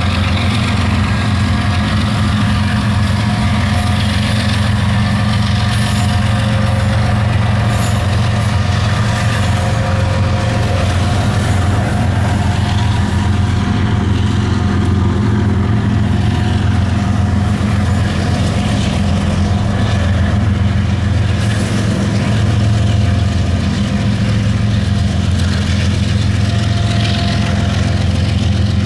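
Diesel locomotives of a CSX freight train running under power, a loud, steady low engine drone with rumbling noise over it.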